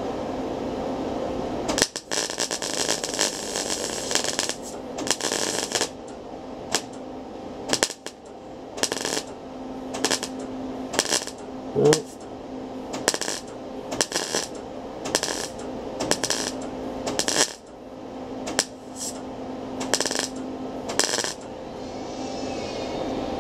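MIG welder arc crackling as thin-gauge auto body sheet steel is welded to plug a hole. It starts with one longer run of a couple of seconds, then goes on in short bursts about once a second, over a steady hum.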